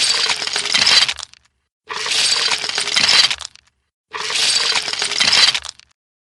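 Ice cubes poured into a bucket, clattering and clinking, three separate pours of about a second and a half each, each getting a little louder toward its end before stopping.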